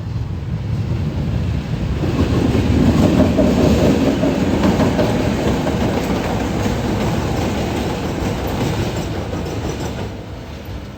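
Train rolling past on the rails, its rumble building about two seconds in, loudest for a couple of seconds, then slowly fading.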